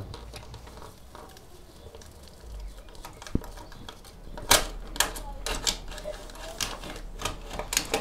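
Sharp plastic clicks and knocks from about halfway through as the end cover of a Miele washing machine's drive motor is worked and pulled straight off, with a faint single tick before.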